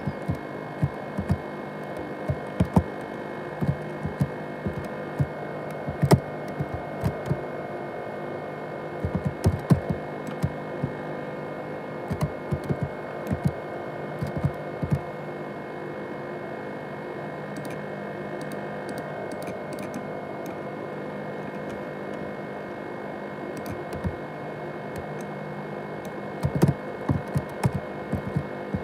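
ASUS X543UA laptop's cooling fan running steadily with a hum and several whining tones, a noise likened to a jet engine on a laptop described as broken down. Irregular sharp clicks come over it in clusters.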